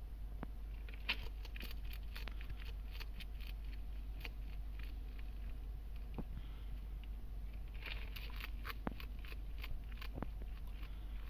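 Faint scattered clicks, scrapes and crackles as a bearded dragon hunts crickets on a sandy terrarium floor, bunched about a second in and again near the end, over a steady low hum.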